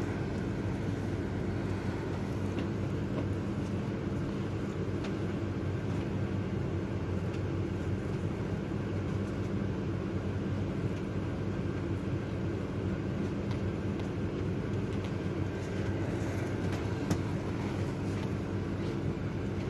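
A steady low mechanical hum, even throughout, with a few faint clicks over it.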